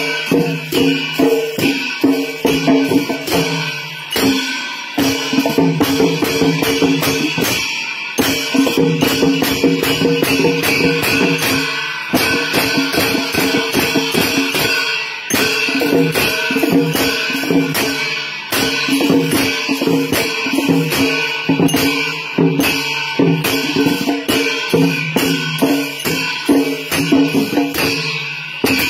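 Traditional Newar drum-and-cymbal music of the kind played for the Lakhe dance: drums beaten in fast, dense strokes under a constant clash and ring of cymbals. The music comes in phrases, with short breaks about every four seconds.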